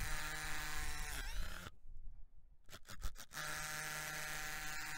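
Faint drone of a DeWalt SDS drill motor drilling fixing holes into a masonry pillar. It runs, winds down about a second in, and after a short pause with a few light clicks starts drilling again.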